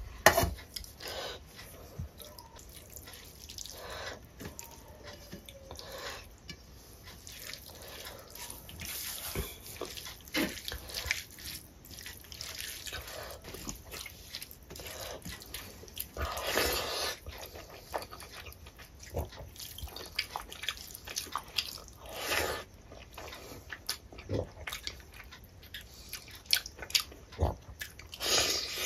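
Wet, squelching clicks and smacks of a hand mixing rice with curry on a steel plate, mixed with mouth sounds of chewing. There is a sharp metallic clink just after the start as a steel bowl is set down.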